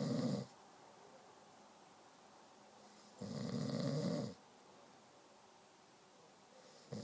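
Snoring in a steady rhythm, each snore about a second long and coming roughly every three and a half seconds. One snore ends just after the start, a full one falls a little past the middle, and the next begins at the very end.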